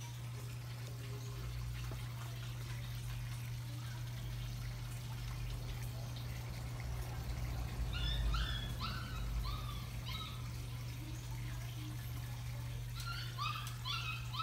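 Water trickling in an aquaponic grow system over a steady low hum, with two runs of short, high chirping animal calls, a little past halfway and again near the end.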